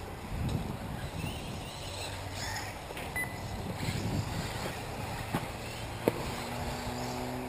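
Electric 1/8-scale RC off-road buggies racing, their motors giving a faint whine that rises and falls as they accelerate and brake. Two sharp knocks come in the second half, about a second apart.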